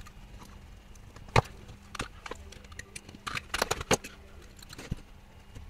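Irregular clicks and knocks of circuit boards and small metal hardware being handled and fitted together. There is one sharp knock about a second and a half in and a quick cluster of clattering around three to four seconds in.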